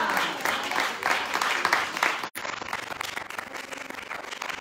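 Congregation clapping and applauding, a dense patter of hand claps. It breaks off for an instant about two seconds in, then goes on more softly.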